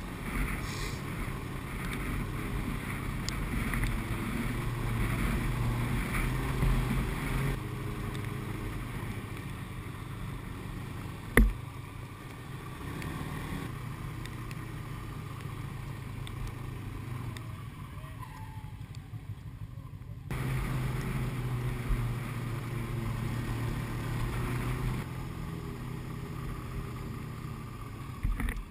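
Snowmobile engine running steadily while riding a trail, a low drone that changes abruptly in level twice. One sharp knock stands out about a third of the way through.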